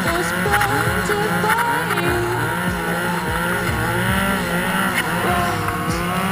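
Snowmobile engine revving up and down over and over as the sled works through deep powder.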